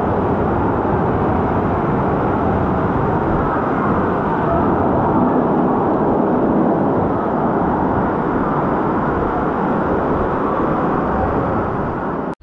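Steady, loud rush of churning water from spa-pool jets and spouts pouring into the pool.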